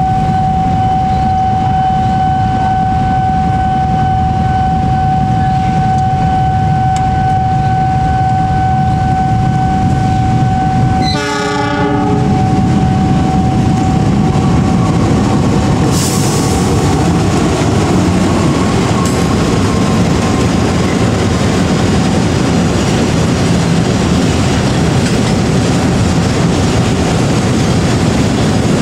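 Diesel-electric locomotive hauling a container freight train past, with the engine running and the wagons rumbling steadily over the rails. A steady high tone is held for the first eleven seconds, and a short hiss comes about sixteen seconds in.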